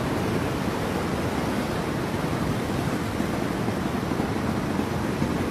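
Swollen, muddy river floodwater rushing past, a steady even noise.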